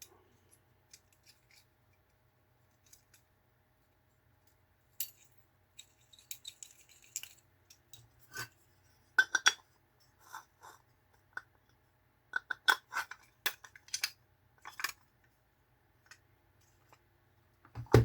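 Small metal diecast toy vehicles being handled and set down, giving a series of sharp clicks, clinks and light knocks. They are sparse at first and come thicker and louder from about a third of the way in.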